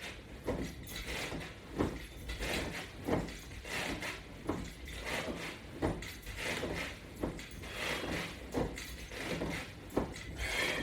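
Someone doing sit-ups on a floor mat with their feet strapped under a bar: a soft thump and a rustle with each repetition, about every one and a half seconds.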